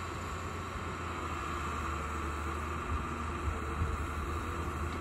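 Hyundai Robex 200 LC crawler excavator's Cummins 6BT5.9 inline-six diesel running steadily as the machine works. A few short knocks come about three to four seconds in.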